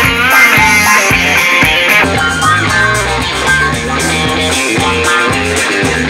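Guitar-led rock music with drums, played through a Bluetooth speaker and picked up by a microphone. About two seconds in, playback switches from the box-shaped speaker to the cylindrical one, and the treble thins out.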